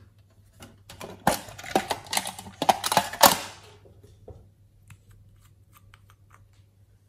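Close-up handling noise of hands working with small hard objects: about two and a half seconds of crackling and clattering with sharp clicks, then a single knock. After that come a few faint ticks as the cap of a glitter nail polish bottle is unscrewed.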